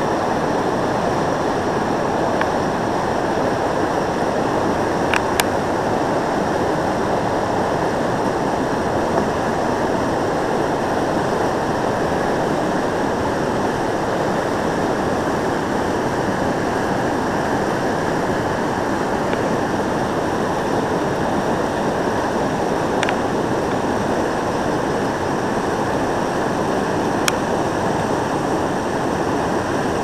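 Whitewater rushing steadily over the four-foot ledge drop of a Class III river rapid, a constant, even noise.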